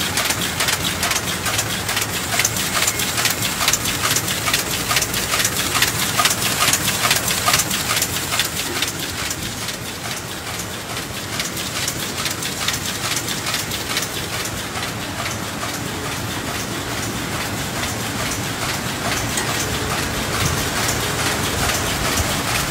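Square-bottom paper bag machine running at production speed: a dense, rapid clatter of many small mechanical clicks over a steady hiss.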